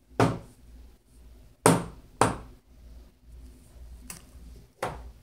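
Sharp knocks and thumps, five of them at uneven gaps, with the loudest pair close together a little under two seconds in.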